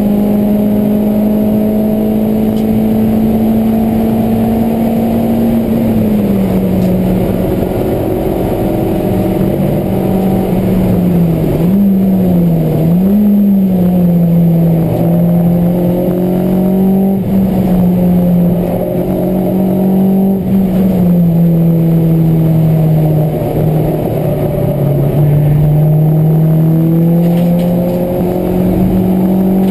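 Honda Civic EK4's 1.6-litre VTEC four-cylinder engine running hard at high revs, heard from inside the cabin. Its pitch holds steady, dips and recovers briefly about twelve seconds in, then falls slowly and climbs again near the end.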